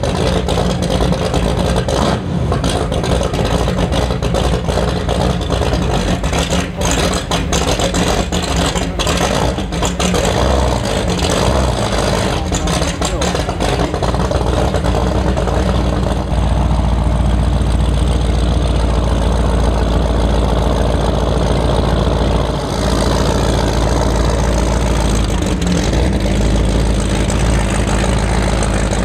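Twin supercharged V8 engines of an Apache 41 offshore powerboat running at idle with a deep, steady drone while the boat moves at low speed. The low rumble grows louder about halfway through.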